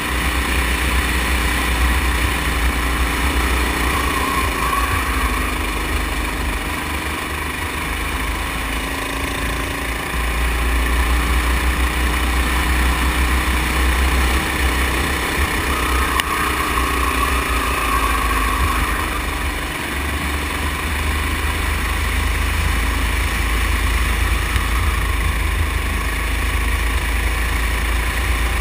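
Go-kart engine running under the driver, its pitch rising and falling as the kart accelerates out of corners and eases off into them, with heavy wind rumble on the microphone.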